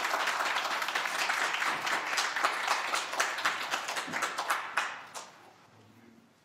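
An audience applauding after a speech, with many hands clapping together; the applause dies away about five seconds in.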